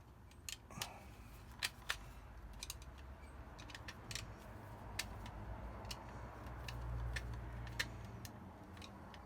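Scattered small metallic clicks and taps of a screwdriver and copper wires being worked into a plug socket's terminal, with a low rumble swelling about seven seconds in.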